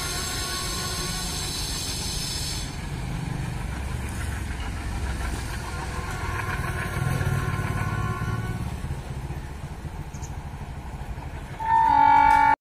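Diesel-hauled passenger train pulling away down the line: a steady low rumble of the locomotive's engine and the wheels on the rails. Near the end a loud horn sounds and is cut off abruptly.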